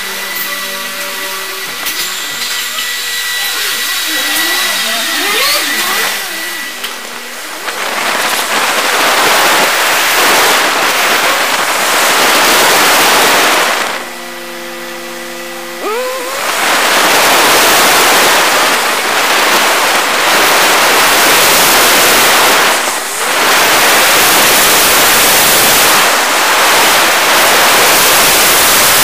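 Car driving, heard through a low-cost action camera: a loud, even rush of road and wind noise covers most of it. About halfway through, the rush drops away for a couple of seconds, leaving a steady engine hum whose pitch then rises as the car pulls away.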